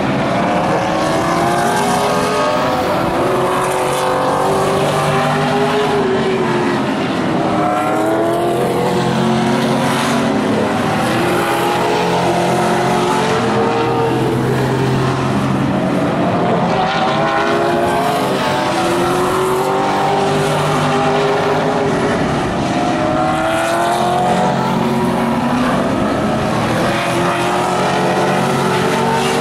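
Vintage modified stock cars racing around an oval track, their engines rising in pitch down the straights and falling off into the turns, in repeated waves lap after lap.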